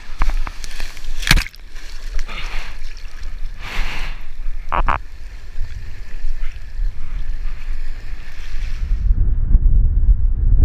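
Wind buffeting an action-camera microphone while a Core kiteboard planes through choppy water, with water rushing and several sharp splashes and slaps of chop against the board. About nine seconds in the hiss of water stops and only a heavy low wind rumble on the microphone remains.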